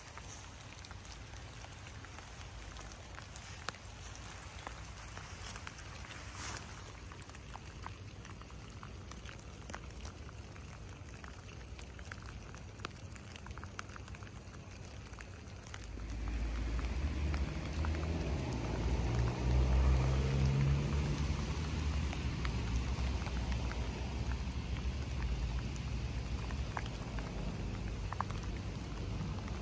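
Light rain pattering on grass and leaves, with scattered drops ticking. About halfway through, a low rumble with a faint hum comes up, peaks a few seconds later, then eases off without stopping.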